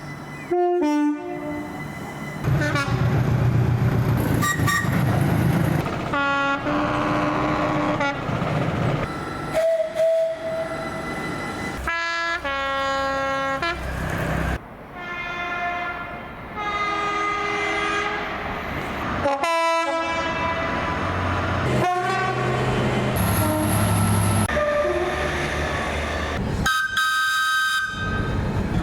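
British trains sounding their horns, one recording after another with abrupt cuts between them. Each blast is several steady tones sounding together, over the low running rumble of the trains.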